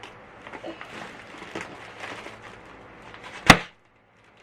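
Faint rustling and handling of packaging, then a single sharp knock about three and a half seconds in, after which the sound drops out to silence.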